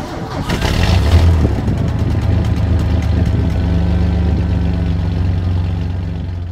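Freshly rebuilt Ford 300 (4.9-litre) inline-six engine starting on the key, catching in about the first second, then idling with a steady low exhaust rumble.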